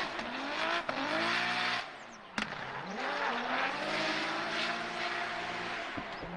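Racing car engine revving, its pitch rising and falling in several sweeps over a steady hiss, with one sharp click a little over two seconds in.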